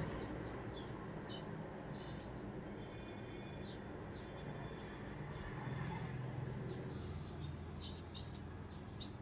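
Newly hatched chicks peeping softly in short, high chirps, a few a second at first and more scattered later.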